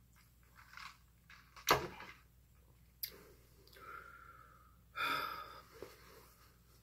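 Scattered handling sounds of fast food and its packaging: a sharp knock a little under two seconds in (the loudest), a click at about three seconds, then a short breathy hiss and a brief rustle.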